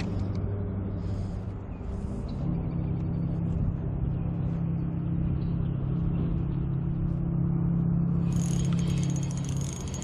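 A motor engine running steadily with a low hum, its pitch stepping up slightly about two and a half seconds in. Near the end a spinning reel is cranked, adding a fine high whir.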